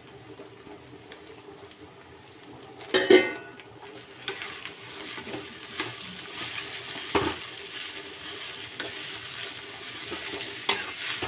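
Metal spatula stirring and scraping spiced potato filling in a metal kadhai, with a loud clank of metal about three seconds in. From about four seconds the frying potato sizzles steadily under scattered scrapes and taps of the spatula.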